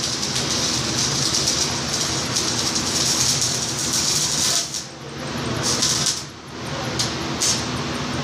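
Electric arc welding: a steady sizzle from the arc, which breaks off briefly twice, about five and six seconds in, and strikes up again each time. A steady low hum runs underneath.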